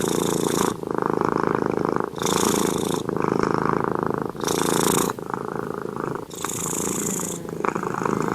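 Sleeping tabby cat purring loudly close up, the purr alternating with each breath in and out, every second or so.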